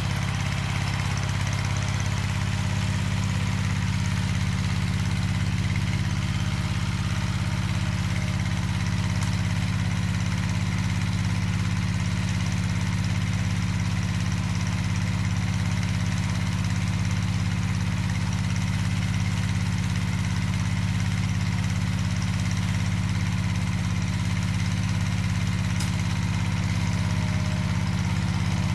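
Walking tractor's single-cylinder diesel engine running steadily at an even speed.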